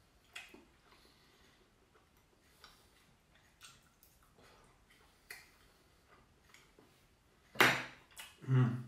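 Fork and knife clicking and scraping on a plate of food, with scattered faint taps. Near the end there is a louder sudden noise, followed by a brief low vocal sound from the eater.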